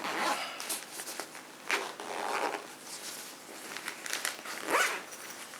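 Rustling and handling of gear being sorted in a bag: a few short crinkles and scrapes of plastic and fabric, with the loudest one near the end.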